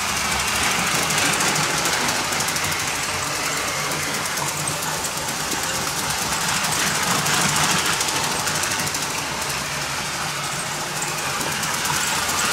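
LEGO electric model trains running on plastic track: a steady whir of the train motors with the rattle of wheels and cars on the rails.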